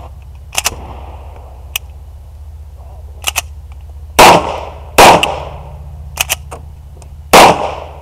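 Three loud semi-automatic pistol shots fired close to the microphone. The first two come under a second apart and the third about two seconds later. Several fainter sharp cracks fall between them.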